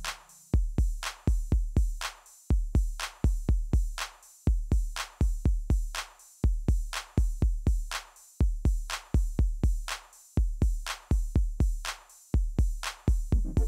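Background music: a bare electronic drum-machine beat of deep kick drums, hit in quick groups that repeat about every two seconds, with a light ticking top layer.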